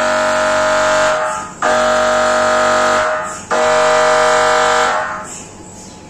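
GE MRI scanner's gradient coils buzzing during a scan sequence: three loud buzzes about a second and a half long, each held at one steady pitch, separated by short gaps, the last fading out about a second before the end.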